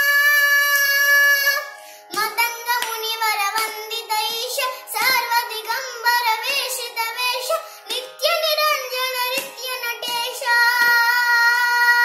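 Child singing a Carnatic devotional song in raga Revati, with long held notes near the start and near the end and quicker ornamented phrases between, over a steady drone from an electronic shruti box. Light hand slaps keeping the adi tala beat come at regular intervals.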